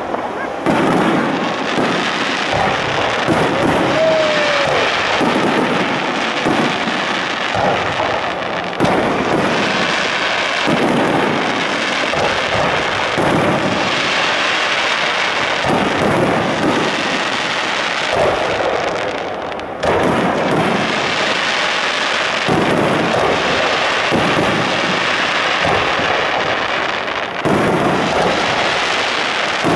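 Aerial firework shells bursting in a dense barrage, one burst running into the next with crackle in between, with fresh loud bursts every second or two.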